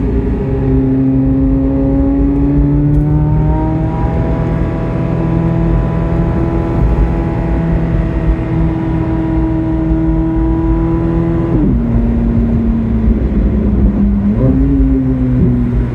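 Chevrolet Corvette C8 Z06's 5.5-litre flat-plane-crank V8 pulling under way. Its pitch climbs over the first few seconds and then holds steady. It drops sharply at a gear change about twelve seconds in, then rises again briefly near the end.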